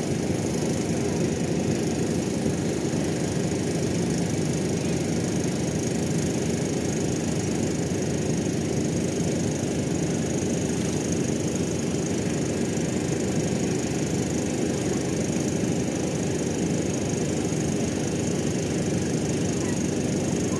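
Steady, unchanging low engine rumble with a faint hum, as of a large ship's diesel engines running.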